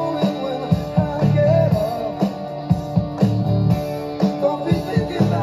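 Guitar-led music with a steady beat of about two strikes a second, played over loudspeakers driven by a serviced Soundcraftsmen A5002 Class H power amplifier.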